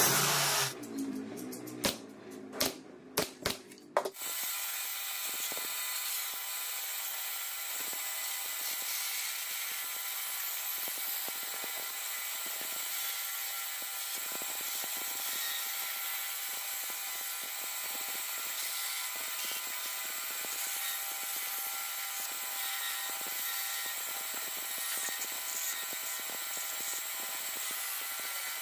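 A few sharp wooden knocks, then a bandsaw running steadily as its blade cuts through two stacked pine boards, a constant whine and hiss.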